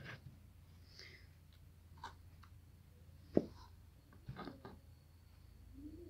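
Faint clicks and soft taps from handling raw potato slices and dipping them into gram-flour batter in a plastic tub, with one sharper click about three and a half seconds in and a few more taps shortly after, over a faint low hum.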